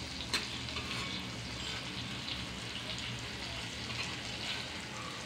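Halved boiled eggs sizzling in oil and spice masala on an iron tava, with a spatula scraping the pan as the eggs are turned. There is one sharp tap about a third of a second in.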